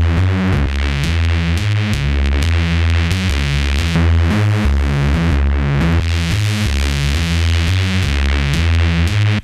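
Synthesized electronic bassline played back through heavy over-the-top (OTT) multiband compression, a dense, bright bass pattern of short notes changing pitch. It stops abruptly near the end.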